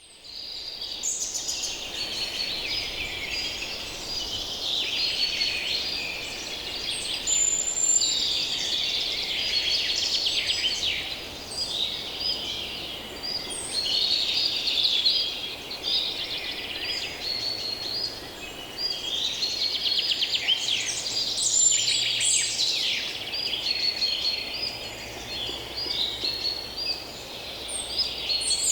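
A dense chorus of many songbirds singing and calling at once, overlapping chirps and trills with no pause. From a little past halfway a faint low steady hum of distant human activity sits underneath.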